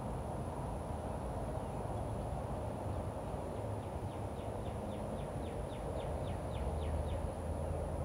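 A small bird sings a fast trill of about a dozen short down-slurred whistled notes, about four a second, over steady low outdoor background rumble.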